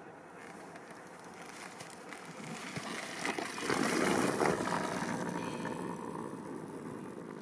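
A 2003 Kawasaki KX250 two-stroke dirt bike heard at a distance, growing louder to a peak about halfway through and then fading as it rides by.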